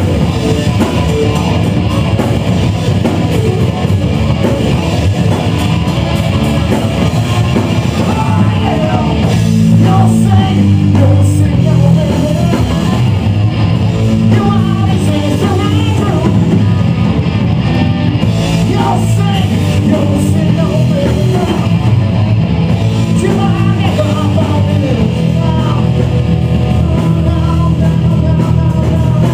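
A live rock band playing: electric guitar and a drum kit, with a singer's voice over them.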